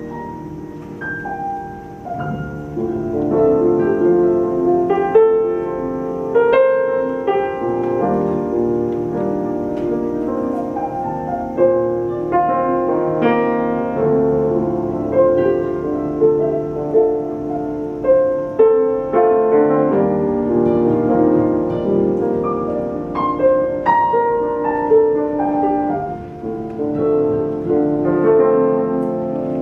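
Grand piano and nylon-string classical guitar playing an instrumental duet, with the piano most prominent. The music runs on continuously with many overlapping melodic notes.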